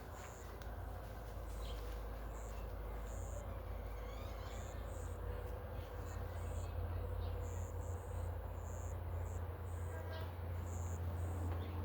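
Insects chirping in short, separate high bursts over a steady low rumble.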